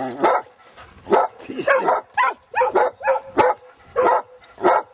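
An orange-and-white gun dog barking over and over, about two barks a second.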